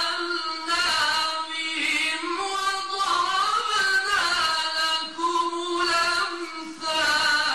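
A man chanting the Quran in melodic tajwid (mujawwad) recitation, holding long, ornamented notes on a high pitch. He breaks off briefly about a second in and again near the end.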